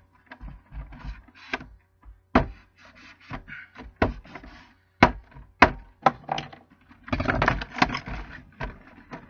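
Cardboard-and-plastic card collection box being handled and worked open: irregular knocks, taps and scraping, with a denser stretch of scraping and rustling about seven seconds in.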